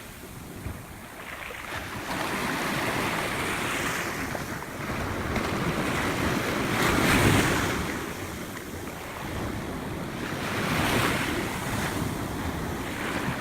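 Ocean surf breaking and washing up the beach, swelling and ebbing with each wave, loudest about halfway through and again near the end. Wind rumbles on the microphone throughout.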